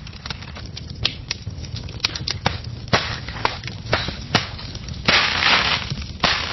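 Fire crackling, with irregular sharp pops and snaps over a low rumble. Near the end come two short, louder bursts of hissing crackle.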